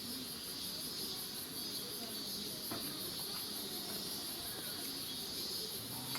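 Chorus of cicadas singing steadily, a high shrill drone with a rapid, even pulse that never lets up.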